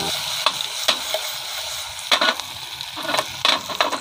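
Climbing perch (ikan puyuh) frying in a shallow metal pan, sizzling steadily, with several short clicks and scrapes of the fish being stirred and turned in the pan.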